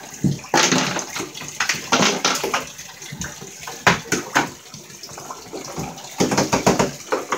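Water splashing and sloshing in a partly filled bathtub as a person moves about in it, in irregular bursts.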